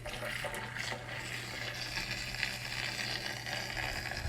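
A battery-powered makeup-sponge washing machine switching on and running, its small motor spinning and churning soapy water in a steady swishing wash, with a few light clicks in the first second.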